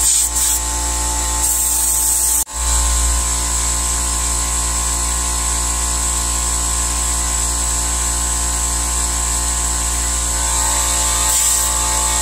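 Airbrush spraying paint: a steady hiss of air, with the hum of a small air compressor running underneath. The spray comes in short on-off bursts at first, then after a brief break about two and a half seconds in it runs steadily.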